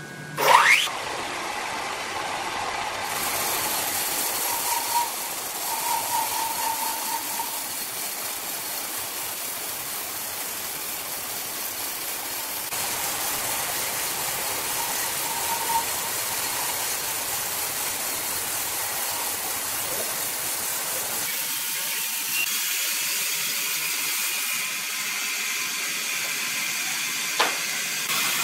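Large horizontal band sawmill cutting lengthwise through a big log: a steady hissing saw noise with machinery running beneath it. A brief, sharp rising squeal about half a second in is the loudest moment, and a shorter squeak comes near the end.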